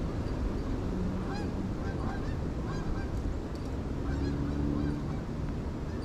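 Geese honking: a string of short calls over a steady low rumble.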